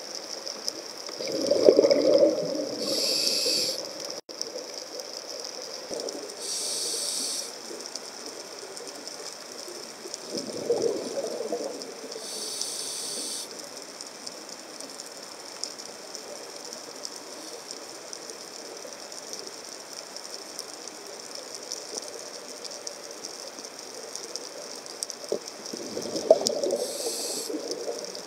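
A scuba diver's breathing, heard underwater: short hissing inhalations through the regulator and rushing bursts of exhaled bubbles, a few breaths with a long gap in the middle. A steady faint crackle runs underneath.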